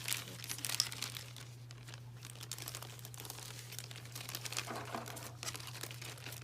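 Plastic crinkling and light clicking as small plastic toy food pieces and their packaging are handled, over a steady low hum.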